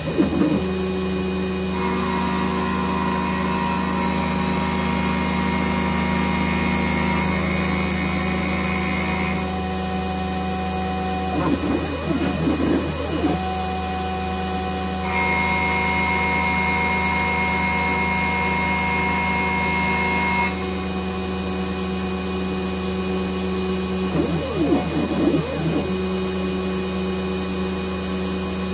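CNC-converted Harbor Freight X2 mini mill facing a metal block with a face mill. The spindle hums steadily, and the stepper motors whine at steady pitches during the table feeds. There are two brief warbling sweeps in pitch, about twelve and twenty-five seconds in.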